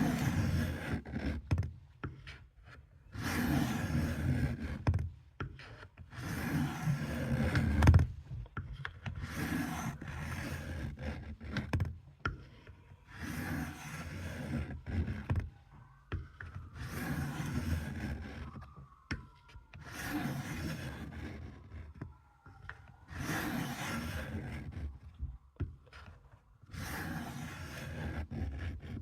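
Knife blade scraping slowly along a wet whetstone: about nine long, even sharpening strokes, one every three seconds or so.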